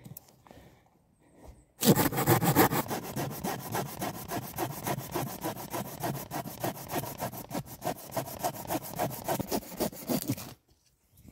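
Folding hand saw cutting through a wooden pole in quick, steady back-and-forth strokes; the sawing starts about two seconds in and stops shortly before the end.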